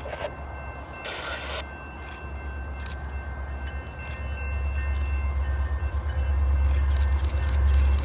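Low rumble of an approaching freight train's diesel locomotives, led by a CN SD70M-2, growing steadily louder as it nears.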